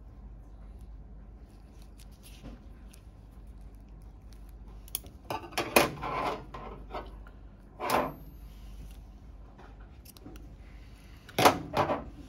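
Metal surgical instruments, a needle holder and scissors, clicking and clinking as they are handled while a suture is tied on a rubber training model, together with glove rustle. The sound comes as a few short clusters of sharp clicks over a low steady hum, and the loudest cluster falls near the end.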